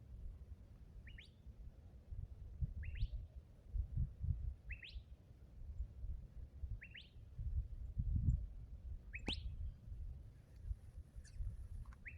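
A small bird calling: a short rising chirp repeated five times, about every two seconds, over a low rumble.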